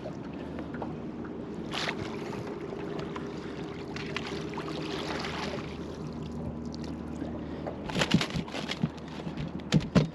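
Steady low hum and water noise around a small boat, then a flurry of splashes and knocks in the last two seconds as a small mulloway is brought aboard.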